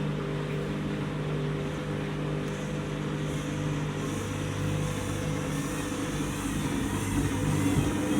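Washing machine in its spin cycle, the drum motor running with a steady hum that grows a little louder and rougher near the end.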